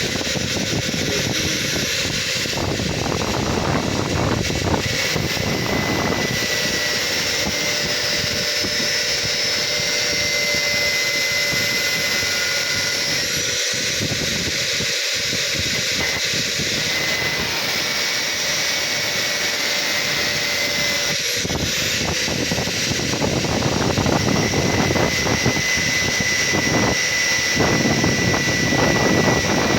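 Angle grinder running at full speed and cutting into metal. It makes a steady high whine, with a rough grinding noise that swells and fades as the disc bites.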